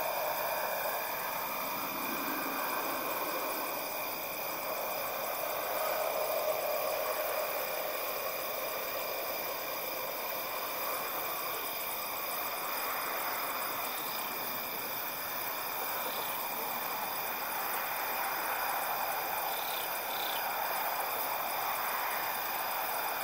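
Outdoor night ambience: a steady high trilling of night insects over a soft wash of distant traffic that slowly swells and fades.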